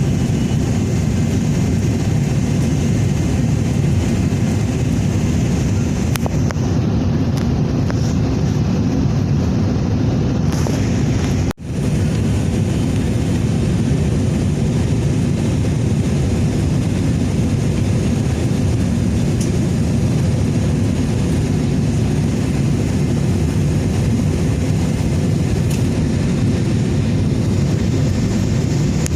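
Steady rumble of an airliner's engines and airflow, heard inside the passenger cabin. It cuts out for an instant about twelve seconds in.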